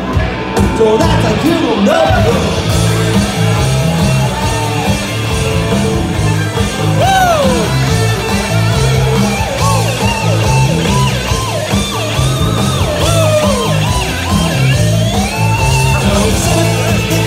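Loud live band playing rock-pop music, a singer's voice over a steady, repeating bass beat with guitar.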